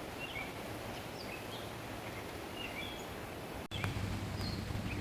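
Outdoor ambience: small birds giving short, scattered chirps over a steady background hiss. The sound drops out for an instant about three and a half seconds in, after which a low steady hum joins.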